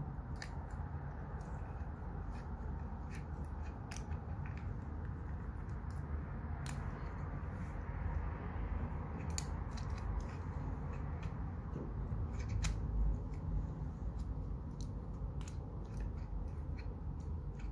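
Hands working a plastic phone-holder clamp on a camera mount, tightening it: irregular small plastic clicks and snaps over steady low handling noise.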